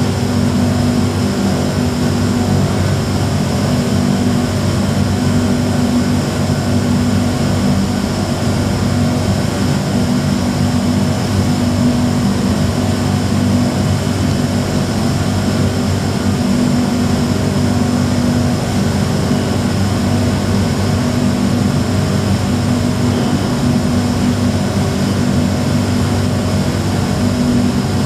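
Steady mechanical hum of an MRT train standing at the platform with its doors open, a constant drone with several held tones and no breaks.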